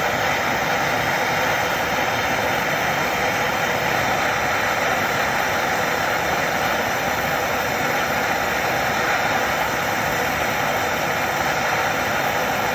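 A steady, unbroken rushing roar, even in level throughout, with no knocks or clicks on top of it.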